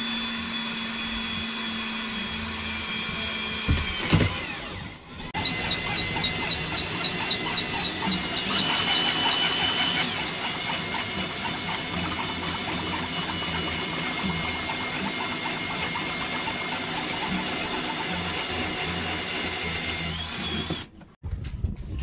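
Power drill whining as it bores into a boat cabin's interior panel. It slows and stops briefly about four seconds in, then starts again and runs steadily until it cuts off near the end.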